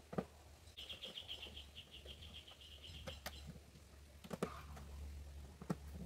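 A screwdriver working screws into a small metal lock plate on a plywood drawer front, giving a few sharp clicks of tool on metal. From about one to three seconds in, a bird chirps in a rapid, even trill in the background.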